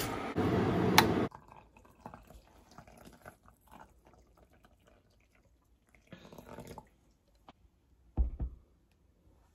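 Hot water poured from a kettle into a ceramic mug, a faint trickling and dripping. The first second is a louder steady noise with two sharp clicks, and a low thump comes just after the middle.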